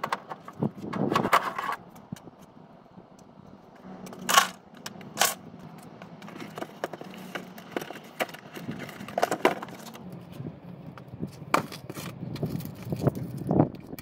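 Scattered metallic clinks, taps and knocks of hand tools and loose parts being handled while working on a truck's front bumper. Two sharp knocks about four and five seconds in are the loudest.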